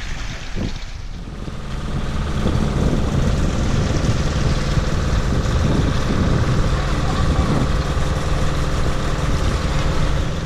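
Fishing boat's engine idling steadily, a constant mechanical hum that comes in about a second and a half in.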